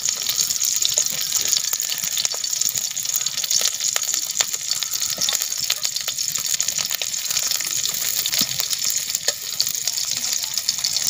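Sliced onions sizzling in hot oil in a steel kadai, with scattered crackles and a steel spatula scraping the pan as they are stirred.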